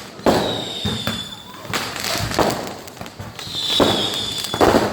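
New Year fireworks and firecrackers going off in a string of sharp bangs, some echoing. Twice a high whistle sounds for about a second and falls slightly in pitch.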